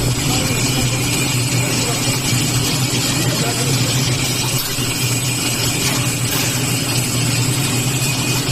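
Steady hum of an electric-motor-driven metal bending machine running, with a constant low drone and a faint high whine over it.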